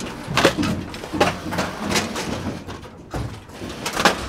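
Scrapes and knocks of people moving over the burnt metal and debris of a wrecked airplane fuselage, with several sharp knocks spaced about a second apart.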